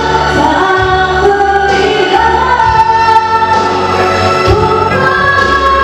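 A woman singing into a microphone through the PA over instrumental backing, holding long notes, one held for over a second about two seconds in.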